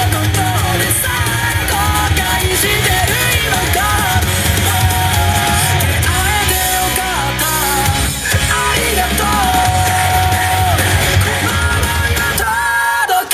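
Loud dance music with a sung vocal line, shouts and heavy bass; the bass cuts out briefly near the end while a held note carries on.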